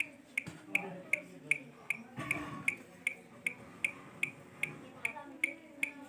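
Sharp, evenly spaced ticks, about two and a half a second, with a brief low voice-like murmur a little past two seconds in.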